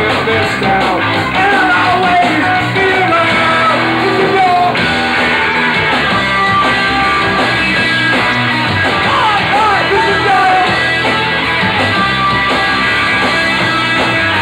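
Rock band playing live, with a man singing lead over guitar, bass and drums; loud and steady throughout.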